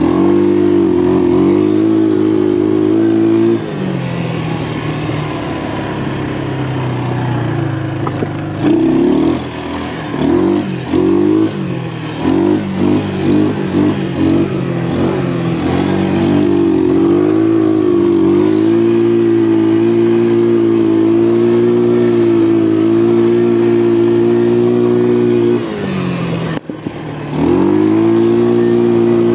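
ATV engine running under throttle, eased off a few seconds in, then revved and released in a quick string of throttle blips before holding steady again. Near the end it drops off briefly and then picks back up.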